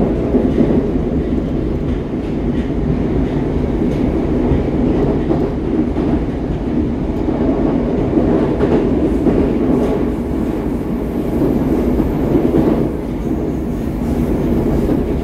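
Moscow Metro train running between stations, heard inside the carriage: a steady loud rumble of wheels on rails with faint clicks over the rail joints.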